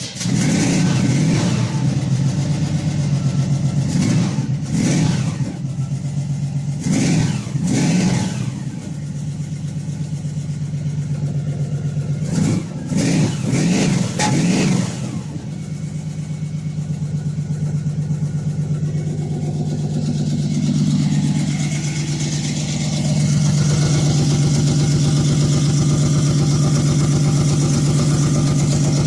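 1982 Chevy C10's 350 small-block V8 just fired up, revved in several short blips over the first fifteen seconds, then idling steadily.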